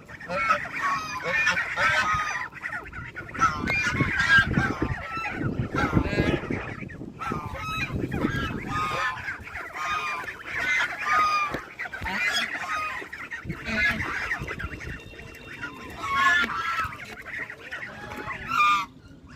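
A flock of ducks calling over one another: many short, harsh quacks and honks overlapping without pause. A low rumbling noise runs underneath between about four and nine seconds in.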